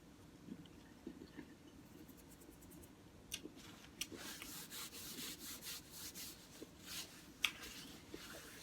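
Close-up rustling and rubbing handling noise, beginning with a couple of sharp clicks about three to four seconds in, with a brief sharp crackle near the end.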